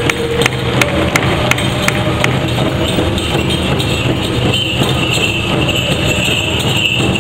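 Powwow big drum beaten in a steady beat, about three strikes a second, under the drum group's singing. From about four and a half seconds in, bells jingle along with it.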